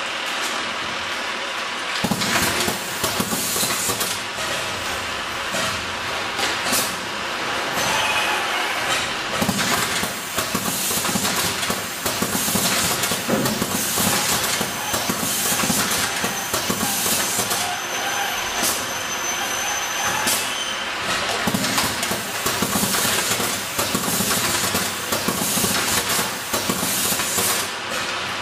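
Automatic packaging machines and their conveyors running, a continuous mechanical rattle and clatter with frequent clicks and knocks, louder from about two seconds in. A thin high tone is held for about five seconds a little past the middle.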